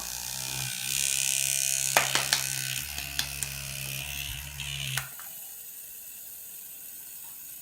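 Small battery-powered DC toy motor running with a whirr and rattling clicks from the parts fixed to its shaft, then switched off about five seconds in.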